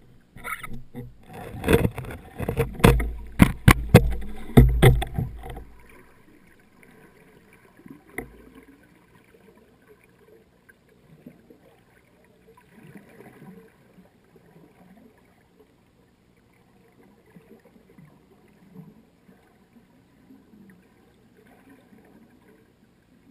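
Underwater knocking and sloshing on a diver's action camera: a dense run of sharp knocks over the first few seconds, then only faint low water noise.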